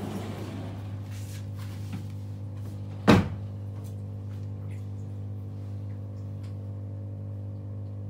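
Bosch dishwasher running with a steady low hum. A single loud thump comes about three seconds in.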